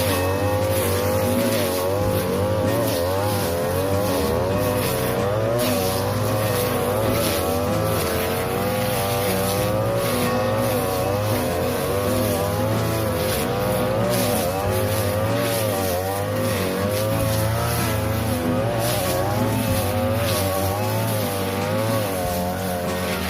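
42cc two-stroke brush cutter running at high revs, its blade cutting tall, flattened cogon grass; the engine pitch dips and recovers every second or so as the blade bites into the grass and frees again.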